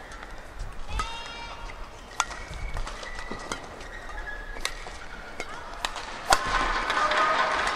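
Badminton rally: sharp racket strikes on the shuttlecock about once a second, with court shoes squeaking on the floor between shots. A loud jump smash comes about six seconds in, and the crowd then claps and cheers, growing louder.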